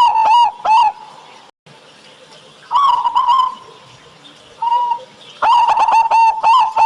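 Zebra doves (perkutut) cooing: a fast run of short, clipped coo notes, about four a second, breaks off about a second in. Two shorter phrases follow in the lull, and the rapid cooing starts again about five and a half seconds in.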